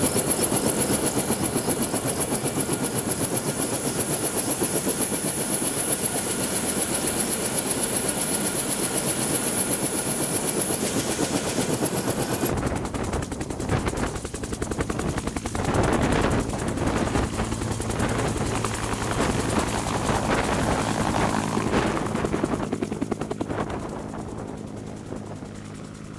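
UH-1 Huey helicopter running: a steady high turbine whine over the rotor chop inside the cabin, then, about halfway through, the rotor chop heard from outside as it hovers and flies away, fading near the end.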